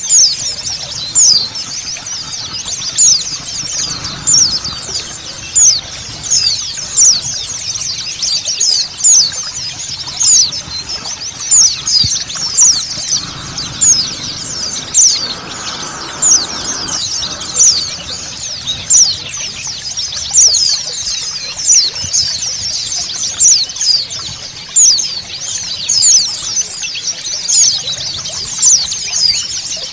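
A flock of white-eyes (pleci) twittering, a dense stream of quick, high chirps that each drop in pitch, with running water as a steady hiss underneath.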